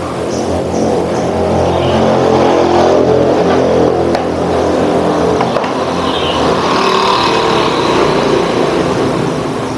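A motor vehicle's engine running steadily, swelling over the first few seconds and easing near the end.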